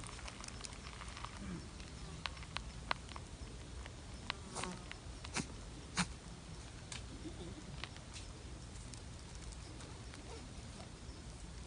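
A rabbit sneezing: a run of short, sharp sneezes between about two and eight seconds in, the loudest around six seconds, with lighter clicks among them.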